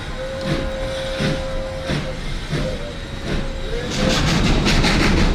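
Steam locomotive chuffing in a slow, even beat, heard from close behind the engine, with a thin, steady high squeal lasting about three and a half seconds. Near the end the sound grows louder and the beats come faster.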